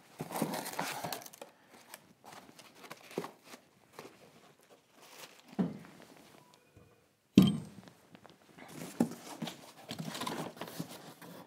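Hands handling cardboard packaging and telescope mount parts: scattered rustling and soft knocks, with one sharp thump about seven seconds in.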